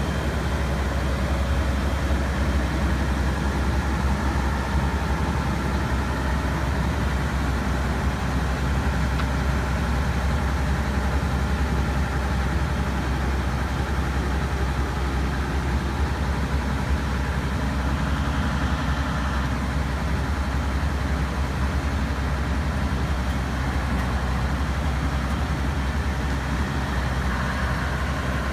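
Diesel engines of a heavy rail track-construction machine running steadily with a deep low rumble. Near the end a higher steady tone comes in.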